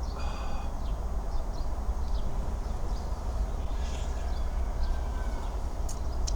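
Outdoor ambience: a steady low rumble with scattered faint clicks and a few short, high calls, one right at the start.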